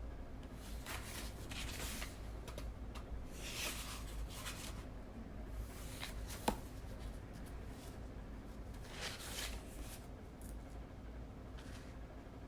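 Pen or pencil scratching and paper being handled at a desk: a few short scratchy passages of a second or so, with one sharp click a little past halfway, over a steady low hum.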